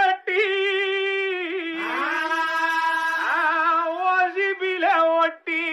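A solo singing voice holds long, wavering notes in a few phrases, with no instruments.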